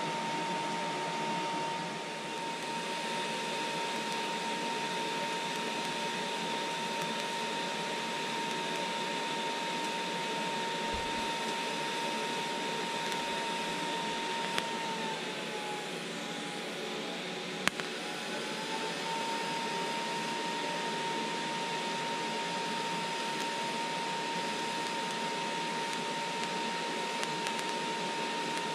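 TIG welding on stainless steel exhaust tubing: a steady hiss with a high whine held on one note, which sags a little in pitch for a few seconds midway. There are two sharp clicks near the middle.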